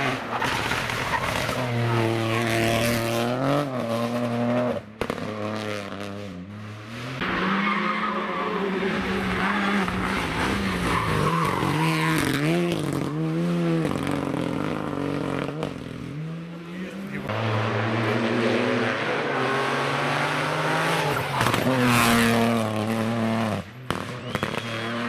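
Rally car engines revving hard on a special stage, the pitch climbing and dropping again and again with gear changes and throttle lifts, with tyres squealing on some of the corners.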